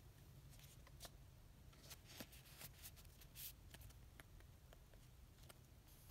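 Faint handling of Pokémon trading cards: scattered light clicks and rustles as cards are slid and shifted in a small stack between the fingers.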